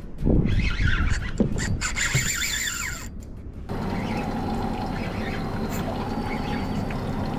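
Spinning reel being cranked as a lure is retrieved, with short squeaks and knocks. After about three and a half seconds this gives way to a steady hiss of wind and water with a faint low hum.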